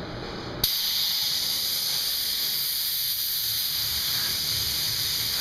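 A steady high-pitched hiss that starts suddenly about half a second in and cuts off near the end.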